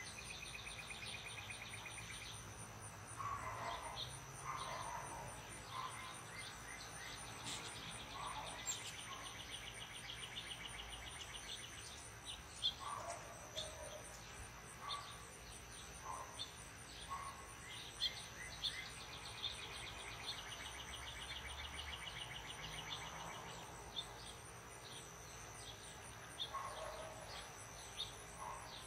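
Evening insect chorus of crickets: a steady high-pitched drone, with pulsing trills that come and go every few seconds. Scattered short bird chirps run through it.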